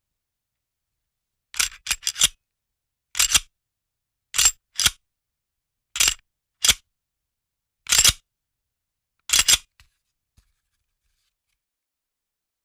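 Sharp metallic clicks of a firearm's mechanism being worked, in short clusters of one to three clicks about a second or so apart, with silence between.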